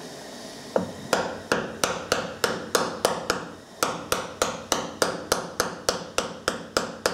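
A small hammer tapping lightly and rapidly on the end cap of a Sno-Way snow plow's DC pump motor, about three taps a second with a short pause near the middle, each tap ringing briefly off the metal housing. The taps are seating the end cap onto the motor's new armature bearing, which is a tight fit.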